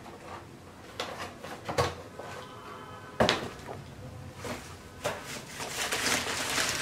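Packaging and boxes being handled: a few knocks and taps, the loudest about three seconds in, then rustling of packaging over the last couple of seconds.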